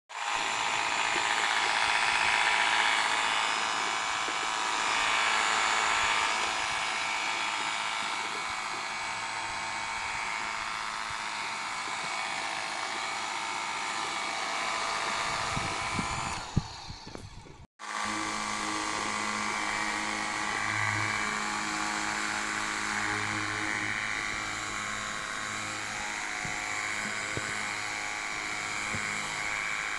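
Xiaomi JIMMY JW31 pressure washer running, its motor whining under a steady hiss of foam spraying from the foam-bottle nozzle. About halfway through it stops with a click, falls briefly silent, and then runs again.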